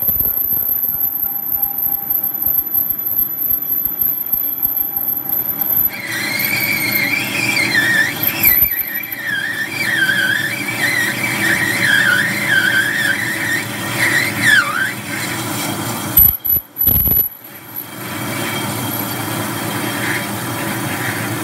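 Metal lathe cutting away a portal-axle stub axle flange: the machine runs steadily while the cutting tool squeals, wavering up and down in pitch, from about six seconds in until about fifteen. Long stringy chips peel off the cut.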